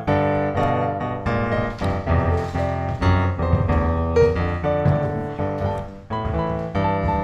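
Background piano music, with new notes coming about twice a second over a low bass.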